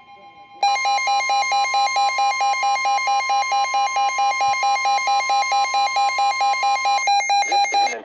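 Midland NOAA weather radio sounding its warning alarm: a loud, rapid pulsing beep starts about half a second in, over a steady single tone, the 1050 Hz NOAA Weather Radio warning alarm tone. The steady tone stops about a second before the end, and the beeping carries on. It signals an incoming flood warning.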